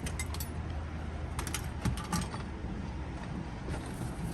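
Loose metal tools and hardware clinking and clattering as they are rummaged through and moved around, with a cluster of sharp clinks about a second and a half to two seconds in.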